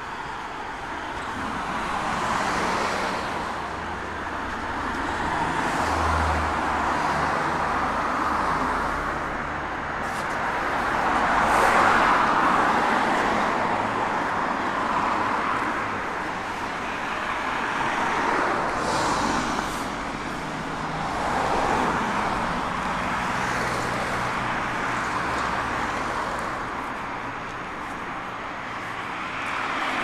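Road traffic: a steady stream of cars passing one after another, the tyre and engine noise swelling and fading every few seconds.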